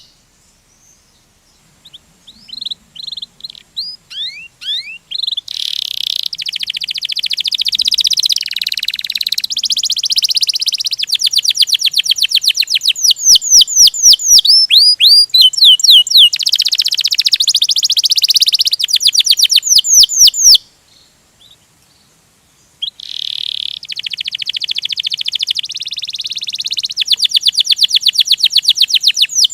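Domestic canary singing a rolling song of fast trills and quick runs of repeated upward-sweeping notes. The song starts about two seconds in, breaks off for about two seconds past the middle, then resumes.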